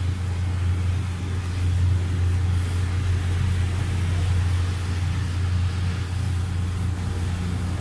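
A steady low rumble, loud and even, that cuts off suddenly at the end.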